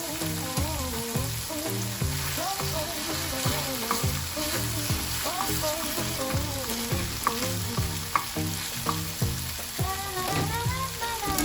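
Minced beef frying and sizzling in a pan while it is stirred, a steady hiss of hot fat.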